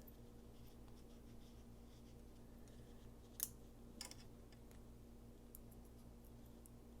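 Near silence with a few faint, short metallic clicks, two of them about three and a half and four seconds in: small parts of a folding knife, such as the blade stop pin, being handled and fitted during reassembly.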